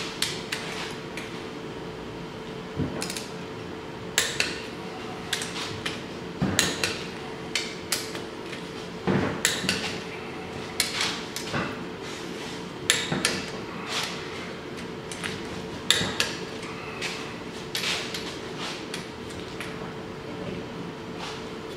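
Irregular metallic clicks and clinks of a long wrench and hand tools working bolts on a Polaris 700 engine's cylinder head, about one or two a second, over a faint steady hum.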